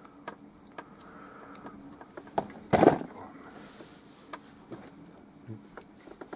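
Scattered light clicks and taps of painting tools being handled at the palette, with one louder brief clatter a little under three seconds in.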